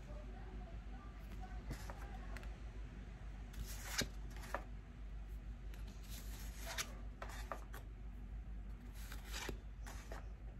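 Tarot cards being handled and turned over one at a time: faint, scattered card slides and taps over a low steady hum.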